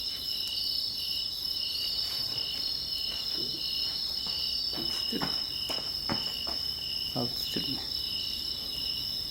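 Steady outdoor insect chorus of crickets or similar insects: a continuous high, shrill chirring with a regular pulsing in its lowest band. Some short, faint, lower sounds that drop in pitch come through in the middle.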